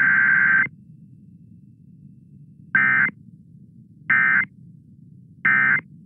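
Emergency Alert System digital data tones on KDKA 1020 AM: a long warbling SAME header burst cuts off about half a second in. After a low radio hum and hiss, three short bursts of the same tone follow about a second and a half apart, the pattern of the end-of-message code.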